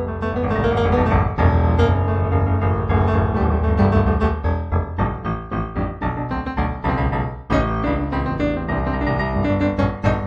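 Solo piano music, improvised, a steady run of many notes with a brief break about seven and a half seconds in.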